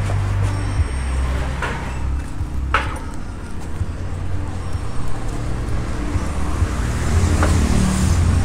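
Low steady rumble of a motor vehicle, with a few short knocks, two of them within the first three seconds.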